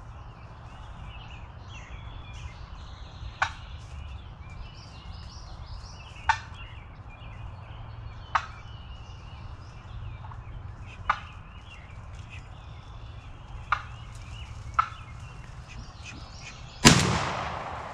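Wild turkey tom clucking close by: six short, sharp single clucks a few seconds apart over faint songbirds, which the hunters take as a sign he was about to leave. About 17 seconds in, a single loud shotgun shot with a long echoing tail.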